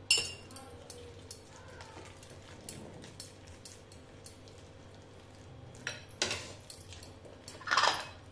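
Plastic spoon stirring a thick buckwheat-flour batter in a glass bowl: soft scraping with scattered light clicks of the spoon against the glass, louder near the end.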